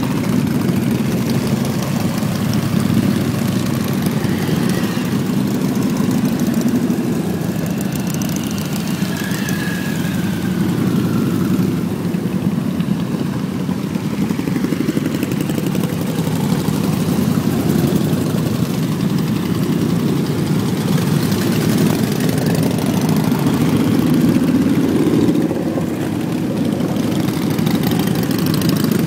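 Engine running steadily: a continuous low rumble.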